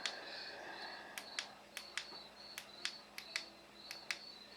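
Sharp clicks, many in quick pairs, from the LED controller's remote being pressed to cycle through colours. Behind them a cricket chirps in short, evenly repeating high pulses.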